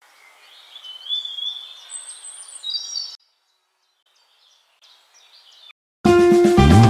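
Birds chirping and whistling over a steady background hiss, cut off abruptly about three seconds in; after a near-silent gap with a few faint chirps, loud instrumental music starts near the end.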